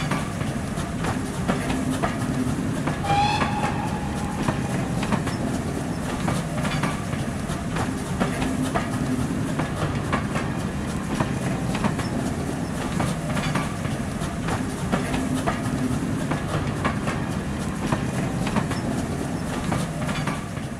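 A railway train running past, its wheels clicking over rail joints above a steady rumble, with a brief whistle about three seconds in.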